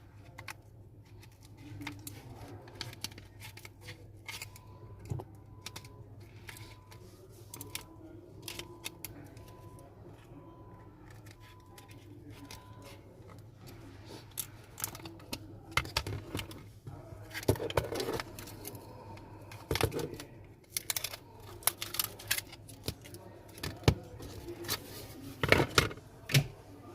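Irregular clicks, taps and light scrapes of small repair tools and parts being handled on a smartphone during screen removal, over a steady low hum. The clicks grow busier in the second half.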